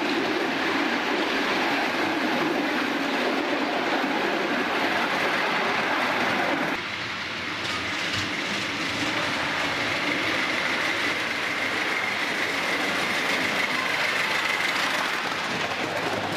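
Ride-on miniature steam railway train running on its track, wheels rolling and clattering on the rails, heard from a passenger car. About seven seconds in the sound drops abruptly to a quieter running noise, with a thin steady high whine through the middle of that part.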